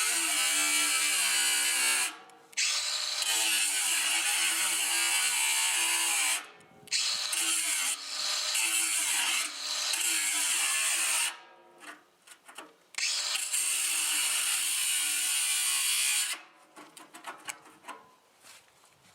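Ryobi 18V cordless 4-1/2 in. angle grinder with a cutoff wheel cutting into a steel drum. It makes four long runs of a few seconds each, its pitch wavering as the wheel bites, then several short bursts near the end.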